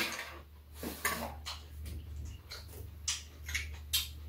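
Eating at the table: a metal spoon and chopsticks tapping against bowls and dishes, with short chewing and slurping mouth sounds, over a steady low hum.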